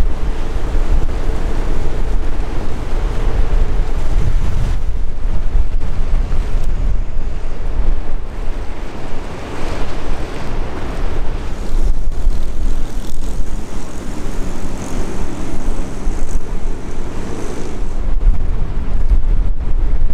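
Strong wind buffeting the microphone: a loud, continuous low rumble with gusts that rise and fall, swelling again about ten seconds in.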